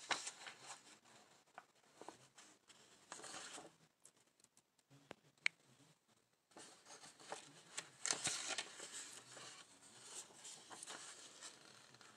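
Faint rustling and scattered light clicks from a handheld phone being moved and handled, with one sharper click about five and a half seconds in.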